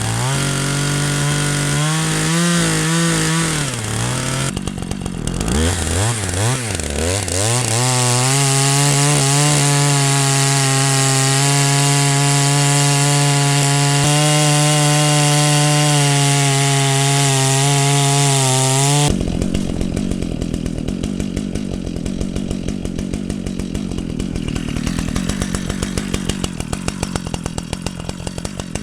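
Zomax 74 cc two-stroke chainsaw revving up and down a few times, then held at steady full throttle for about ten seconds. About two-thirds of the way in, the high engine note stops abruptly, leaving a lower, rougher rattle until a rev near the end.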